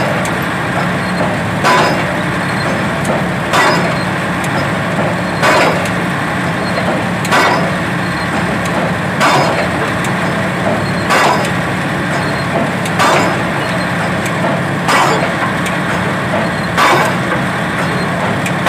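Diesel pile hammer driving a pile: one sharp, heavy blow about every two seconds at an even rhythm, over the steady hum of the rig's engine.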